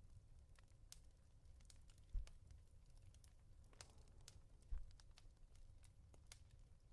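Two soft, muffled pats on a pillow, about two and a half seconds apart, over a faint steady crackle of a fireplace.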